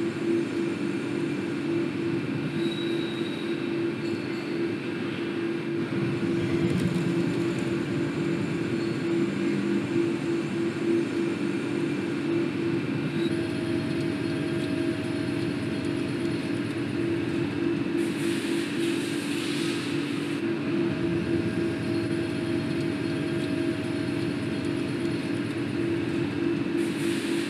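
CNC lathe turning a crankshaft: a steady machine hum with a continuous mid-pitched tone. Two spells of hiss, each about two seconds long, come about two-thirds of the way through and near the end.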